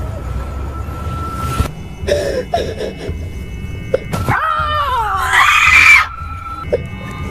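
A person screams in fright: about four seconds in, a long shriek slides downward and breaks into a louder, rough scream that cuts off about six seconds in. A steady low bed of eerie background music runs underneath.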